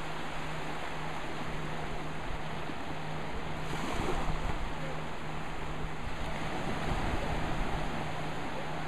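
Small waves breaking and washing up the shallows of a sandy beach, a steady surf hiss that swells about four seconds in and again around seven seconds.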